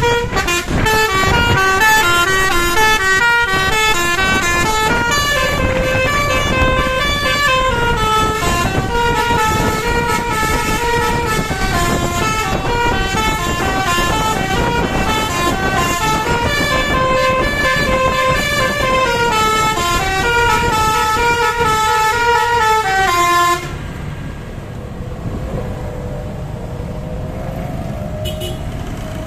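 Bus telolet basuri horn, a multi-note air horn, playing a long stepped tune that climbs and falls through its notes. It stops suddenly about 23 seconds in, leaving quieter vehicle noise.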